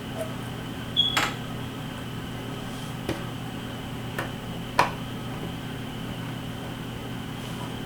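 A few sharp clicks and taps of drone propellers and small parts being handled during a propeller swap, the loudest about a second in and three more spread over the next four seconds, over a steady background hum.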